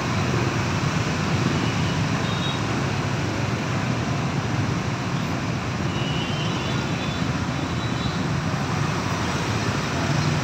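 Traffic jam of motorbikes and scooters: many small engines running together in a steady, unbroken traffic noise.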